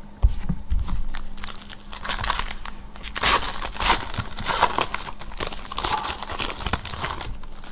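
Foil trading-card pack wrapper being crinkled and torn open by hand, in repeated bursts that are busiest in the second half. A soft thump comes just after the start.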